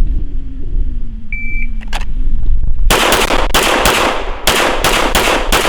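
A shot-timer beep, then a Bill drill: about six rapid handgun shots roughly half a second apart, starting about three seconds in.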